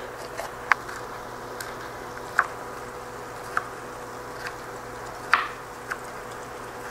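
A chef's knife cutting through a yellow bell pepper onto a cutting board: about seven separate, irregularly spaced knife taps against the board, over a steady low hiss.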